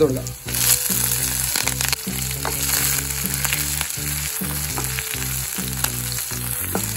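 Chopped green chillies sizzling as they hit hot oil in a frying pan, the sizzle rising about half a second in. A wooden spatula stirs them, scraping and knocking against the pan.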